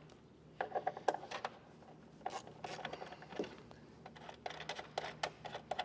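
Irregular sharp clicks and ticks of a hand tool working a T30 Torx bit, backing out the two screws that hold a tail light, in two short clusters with a quieter stretch between.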